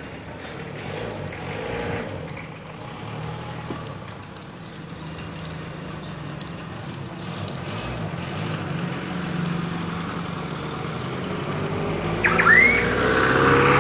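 Road traffic: vehicle engines running steadily as vehicles pass along the road, growing louder toward the end as one approaches. There is a brief high-pitched squeal near the end.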